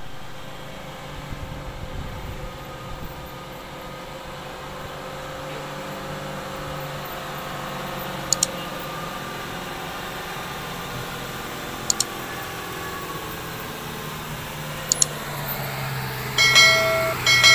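Ten-wheel diesel lorry's engine running under load with a steady low drone that grows louder as it approaches. Near the end its horn sounds in two short blasts, the loudest sound here. Three sharp double clicks come in between.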